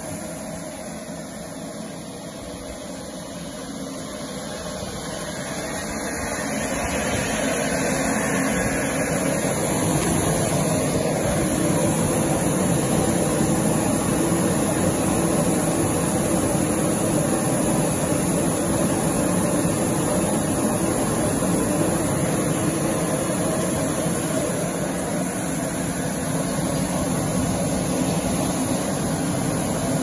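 Cretel crate washing machine running, its water jets spraying inside the wash tunnel as a steady rushing noise. The noise swells over the first several seconds, then holds steady.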